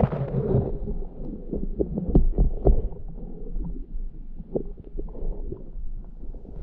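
Muffled underwater sound of a diver swimming in a river: a steady low rumble of moving water with scattered clicks and knocks, and a brief rush of noise at the start.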